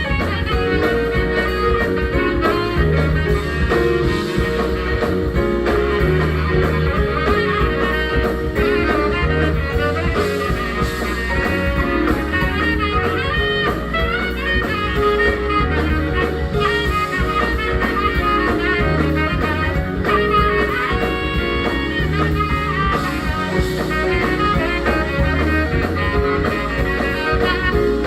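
Live jazz band playing, a saxophone carrying the melody over bass and drums.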